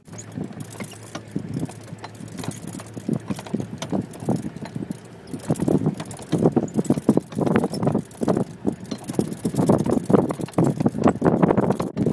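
A herd of wildebeest moving close by: a dense, irregular run of short sounds that grows louder about six seconds in.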